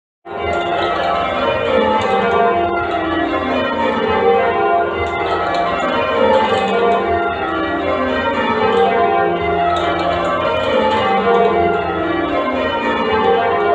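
The ring of eight church bells at St Andrew Holborn, a complete Mears & Stainbank cast, change ringing: the bells strike one after another in quick, even succession, each row stepping down in pitch and then repeating. The ringing cuts in abruptly just after the start.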